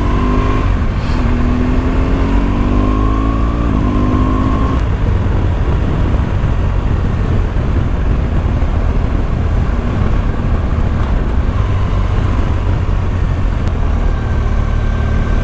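Motorcycle riding on a winding mountain road: the engine note climbs during the first few seconds as the bike accelerates, then it runs on steadily under heavy wind and road noise.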